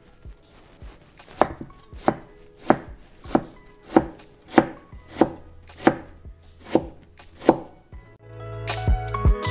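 Kitchen knife chopping potato slices into matchsticks on a plastic cutting board: about ten steady, evenly spaced chops, roughly one every 0.6 seconds. Background music comes in near the end.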